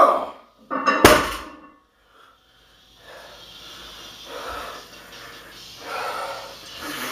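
A loud grunt at the lockout of a 455 lb deadlift, then about a second in the loaded barbell is dropped and the plates hit the floor with a heavy bang. Heavy breathing follows.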